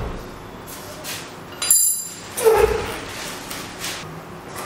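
A metal tool clinks sharply and rings briefly a little under two seconds in, followed about half a second later by a dull knock, with a few soft handling clicks around them.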